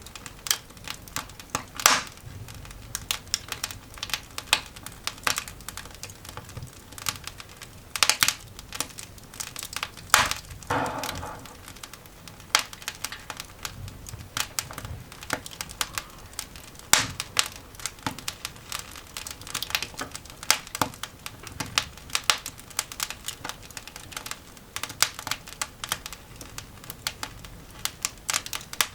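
Newly lit coal fire in a cast iron dog grate crackling, with many sharp, irregular snaps and pops and a louder, longer crackle about ten seconds in.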